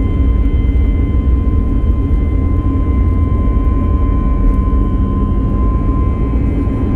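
Jet airliner's engines at takeoff thrust during the takeoff roll, heard inside the passenger cabin: a loud, steady low rumble with a steady high whine of several tones over it.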